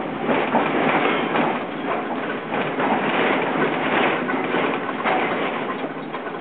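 Tram running along its rails, a steady loud rattling and clattering of wheels and car body.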